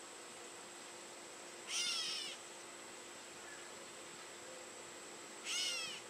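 Gray catbird giving two cat-like mew calls, each about half a second long and falling in pitch, one about two seconds in and another near the end. A steady faint high insect trill runs underneath.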